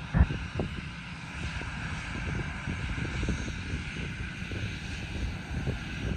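Airbus A319's CFM56-5B jet engines running with a steady whine over a low rumble as the airliner rolls along the runway, with wind buffeting the microphone. A sharp thump about a quarter of a second in.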